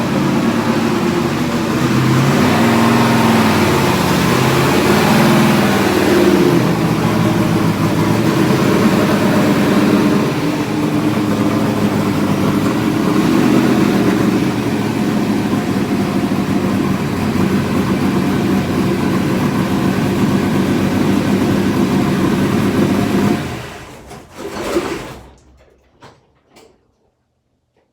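Race car engine running loudly, its revs rising and falling, then shut off near the end, the sound dying away quickly with a few faint knocks after.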